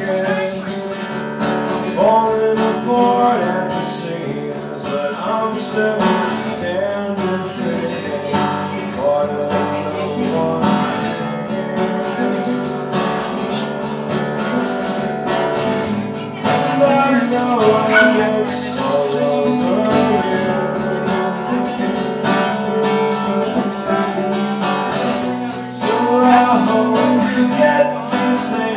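Acoustic guitar played live in an instrumental passage of a song.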